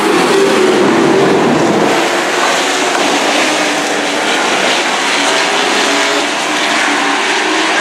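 A pack of dirt-track race trucks racing around the oval. Their engines blend into a loud, steady din with no gaps.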